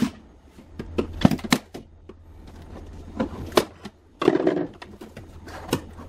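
A series of light clicks and knocks from plastic fridge interior parts being handled by hand, with a short run of clatter about four seconds in, over a faint steady low hum.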